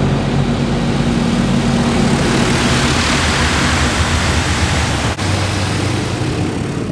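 Touch-free car wash water jets spraying hard against a pickup's windshield and body, heard from inside the cab as a loud, steady rush, with a low steady hum from the idling truck underneath. The spray drops off for an instant about five seconds in, then carries on.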